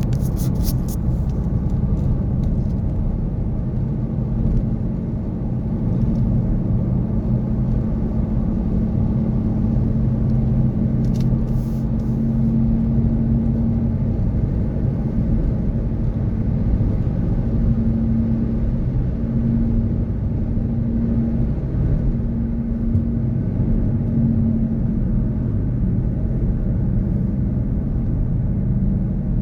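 Steady low rumble of city traffic, with a low hum running through it that breaks up in the second half. A few faint ticks near the start and about eleven seconds in.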